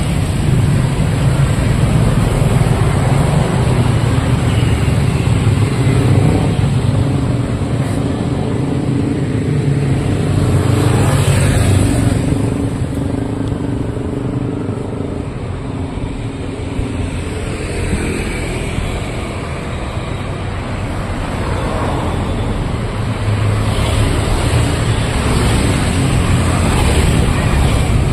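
Street traffic of cars and motorcycles passing on a busy road, their engines making a continuous rumble with swells as vehicles go by. It is quieter for a stretch in the middle and builds up again near the end.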